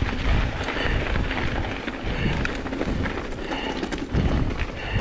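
Strong wind buffeting the microphone while a hardtail mountain bike rides down a rough trail, with the bike's rattles and tyre noise over the rumble.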